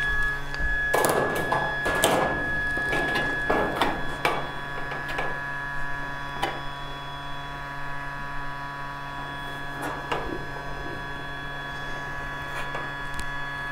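Precision electronics heat gun's fan running in its cool-down, a steady hum with a high whine. Over it, irregular scrapes and clicks as the aluminum canopy rail is handled and slid over the nylon strip, busiest in the first few seconds.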